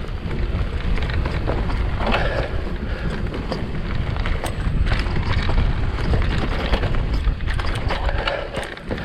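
Mountain bike descending a loamy dirt trail: steady wind buffeting the microphone over tyre roar, with scattered clicks and knocks from the bike rattling over the ground.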